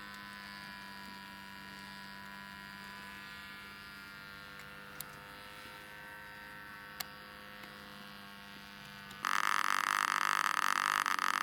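A steady, fairly faint hum of several tones, some sinking slightly in pitch, from a model aircraft motor. About nine seconds in it gives way abruptly to the loud, high buzz of a small model-airplane engine running close by while the model is held down on the ground.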